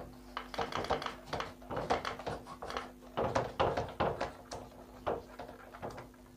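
Whiteboard duster rubbing across a marker-written board in quick back-and-forth strokes, several a second, thinning out after about five seconds.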